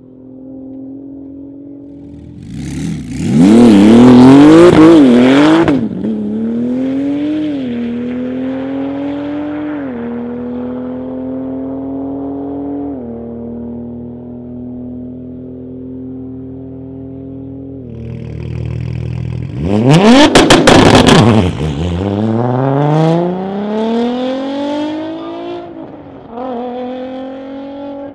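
Two high-powered cars pass at speed in a half-mile top-speed run, one about 3 seconds in and one about 20 seconds in. Each pass is a loud rush with the engine note dropping sharply as the car goes by. Between and after the passes an engine is heard running hard, its pitch stepping with gear changes and climbing near the end.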